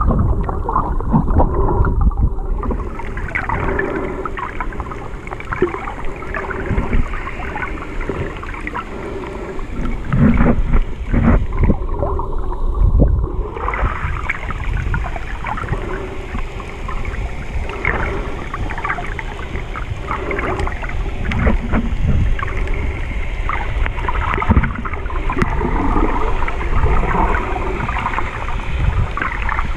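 Muffled underwater noise picked up by a camera held below the surface: water rushing and gurgling against the camera, with frequent irregular knocks and clunks.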